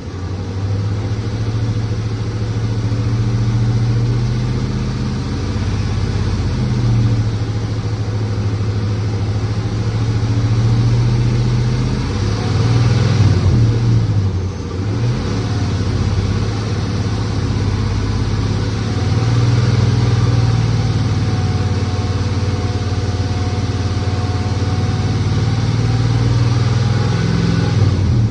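Hemi engine running at a held fast idle of about 2,000 rpm, the speed wavering a little as the throttle is held by hand and dipping briefly about halfway through before coming back up. It is being held there to warm up and circulate coolant until the thermostat opens.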